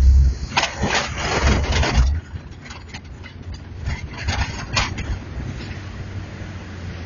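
Inside a Jeep's cabin on a rough wet dirt track: low engine and road rumble, with bouts of rattling and scraping about a second in and again around four seconds in.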